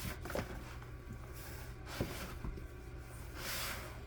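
Bread dough being kneaded by hand on a counter: soft squishing and pushing with a few light knocks, about two seconds apart.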